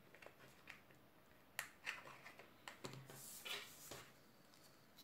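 Quiet handling of a small cardstock box with a paper straw fitted in it: a few light clicks and taps, then a brief papery rustle a little after three seconds in.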